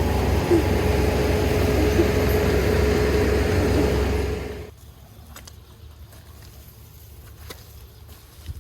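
Kubota ER470 combine harvester's diesel engine running steadily with a held tone, then winding down and shutting off about four and a half seconds in. A few faint clicks follow.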